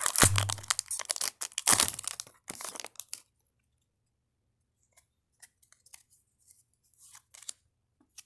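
Foil Pokémon booster pack wrapper being torn open, with crinkling, for about three seconds, then only faint rustles.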